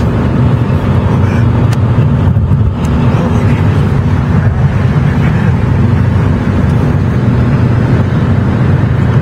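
Steady road and engine rumble heard inside the cabin of a moving car on the highway.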